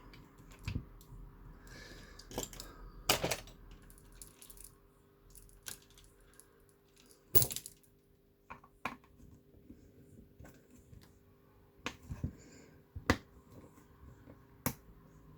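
Sporadic sharp clicks and snips of hand tools stripping and cutting thin electrical wire, with a few louder snaps spaced seconds apart and a faint steady hum underneath.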